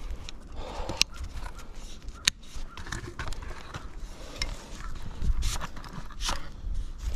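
Rustling and scattered sharp clicks of camera gear being handled close to the microphone, as a camera in a waterproof cover is set up, with low rumbles near the end.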